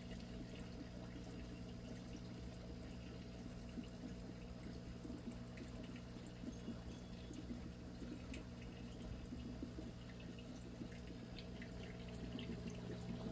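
Water trickling and dripping in an aquaponics tank, over a steady low hum.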